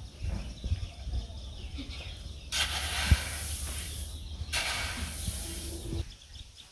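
Wooden rake pushed through a heap of paddy on a tarpaulin, spreading the grain. It gives two hissing rushes of sliding grain, each about a second and a half long, the first starting about two and a half seconds in.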